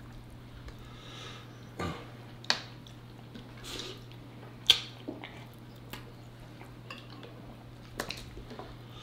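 Close-miked eating sounds: wet chewing and smacking of pig feet and collard greens, with scattered short sharp clicks of fork and dishes, the sharpest about halfway through.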